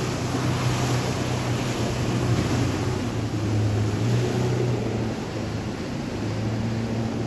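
Motorboat engines running steadily with a low hum, over the wash of surf and wind.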